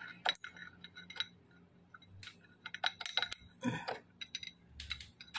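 Irregular light metallic clicks and clinks of small metal engine parts and tools being handled, with a short scrape about two thirds of the way through.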